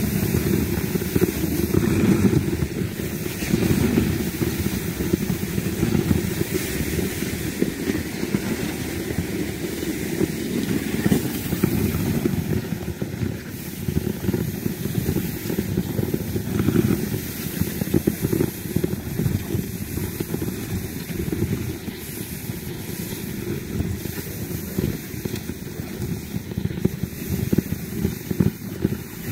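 Steady, rough rumbling noise of being towed over packed snow, heavy in the low end, with wind on the microphone.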